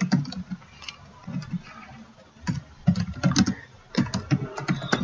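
Typing on a computer keyboard: irregular runs of quick keystrokes, thinning out for a moment about a second in before picking up again.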